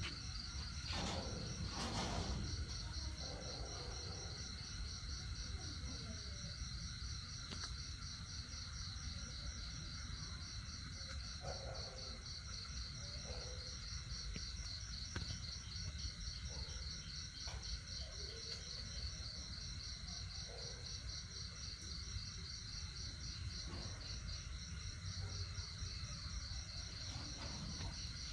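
Insects calling in a steady, high-pitched, finely pulsing chorus, over a low background rumble.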